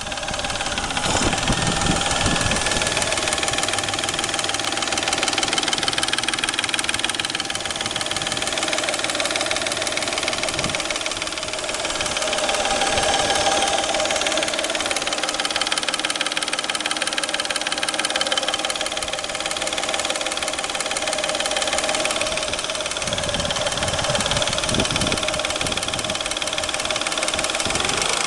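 Peugeot 607's 3.0 V6 engine running steadily with a rapid, even knocking from the timing-belt area, which the owner takes for a fault there.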